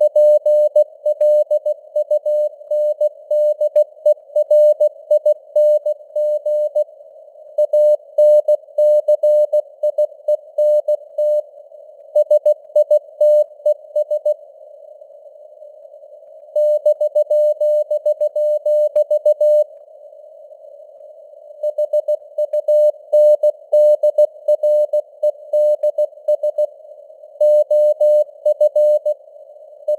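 Morse code sent at 16 words per minute as a single beeping tone keyed in dots and dashes, over a narrow band of simulated radio hiss. The signal strength fades up and down (QSB), and there are two pauses of a couple of seconds between groups.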